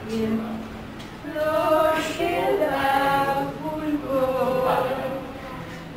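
Two women singing together without instruments, a cappella.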